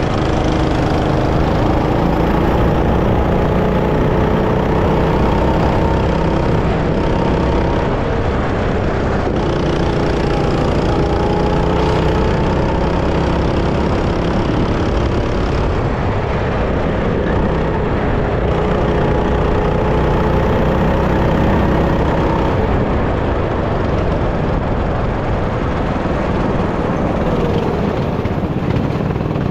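Go-kart engine running under load, its pitch climbing steadily, dropping back and climbing again several times as the kart speeds up on the straights and slows for corners, over a heavy low rumble.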